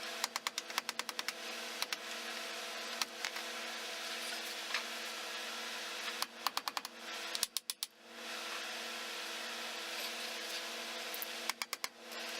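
Short runs of rapid clicking, about eight clicks a second, typical of a ratchet wrench working the differential cover bolts, coming four times over a steady hum.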